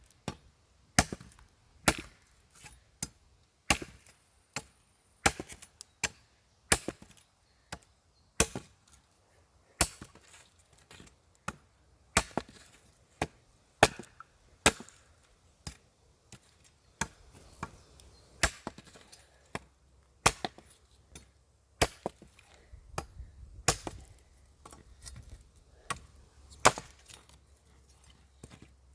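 Ontario Bushcraft machete chopping into dry spruce: a long series of sharp blade strikes on wood, roughly one a second, now and then two in quick succession.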